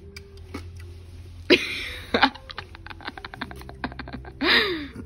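Seafood boil being handled and eaten from a plastic bag: plastic crinkling and crackling under gloved hands in a quick run of small clicks, with a sudden rush of noise about a second and a half in and a short vocal sound near the end.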